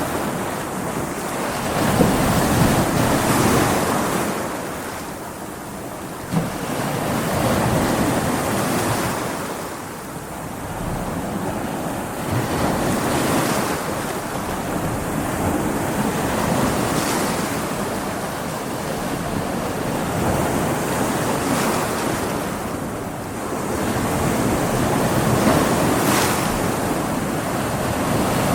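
Ocean waves breaking against rocks, a continuous wash of surf that swells and ebbs every few seconds, with a brief sharp splash about six seconds in.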